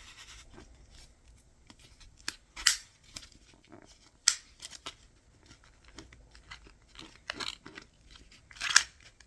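Plastic wrap being torn and peeled off a toy package: irregular crinkling with several sharp crackles, the loudest a little under 3 s in, about 4 s in and near the end.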